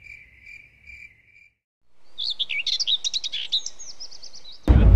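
A cricket chirps in evenly spaced pulses at one steady pitch. After a short gap a songbird sings a quick run of high chirps, ending in a fast trill of falling notes. Near the end a loud low noise cuts in abruptly.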